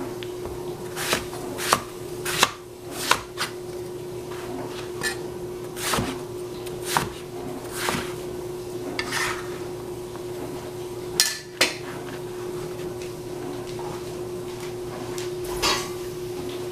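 Kitchen clatter: scattered knocks and clinks of utensils and cookware, unevenly spaced, with two of the loudest close together about eleven seconds in. A steady low hum runs underneath.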